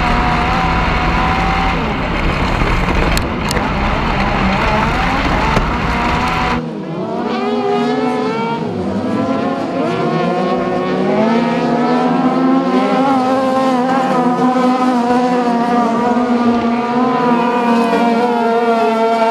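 For the first six seconds or so, onboard sound of a Yamaha MT-09-engined RSK kartcross racing flat out: the engine runs hard under a heavy roar of wind and dirt. Then the sound switches abruptly to trackside, where several cross-car engines rev up and down as the cars slide past on the dirt.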